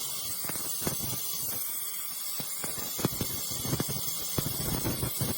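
Handheld laser welder running: a steady hiss with irregular light crackles and ticks.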